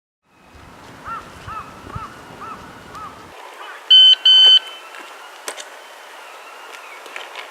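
Two short, loud electronic beeps about four seconds in, over outdoor ambience. A little earlier come five short chirps, about two a second.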